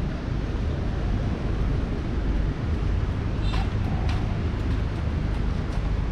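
Wind buffeting the microphone over the steady wash of ocean surf, a constant low rumble, with faint distant voices briefly about three and a half seconds in.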